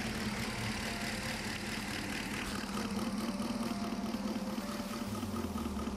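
A 6.2-litre LS3 V8 idling, heard through a screwdriver held against its fuel injectors as a mechanic's stethoscope. A working injector gives a clicking noise; the number 5 injector lacks it: it is not working, the cause of the engine's misfire.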